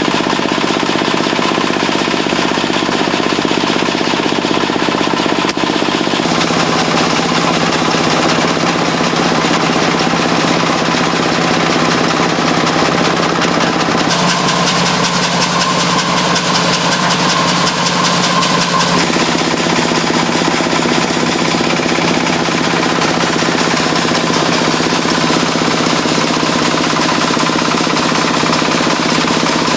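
Portable engine-driven rice thresher running hard with a loud, steady mechanical drone and rattle.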